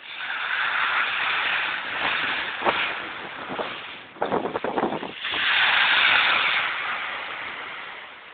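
Small sea waves breaking and washing up the shore: a hiss that swells and ebbs twice, with a short crackling rattle about four seconds in between the surges.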